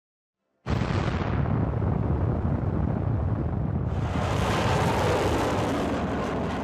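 Missile launch: a rocket engine's roar that starts abruptly and stays loud and steady, deepest at the bottom, with a hiss joining about two-thirds of the way through.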